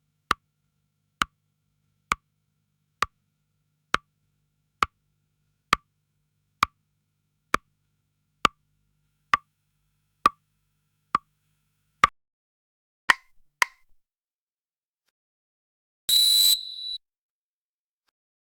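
Countdown sound effect: a clock-like tick, fourteen times a little slower than once a second, then two quicker ticks, and then a harsh, noisy end signal about a second long with a high tone in it.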